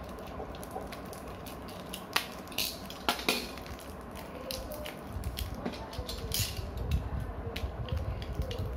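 Plastic packaging and small plastic Beyblade parts being handled by hand: scattered crinkles and clicks, with low bumps from about halfway through.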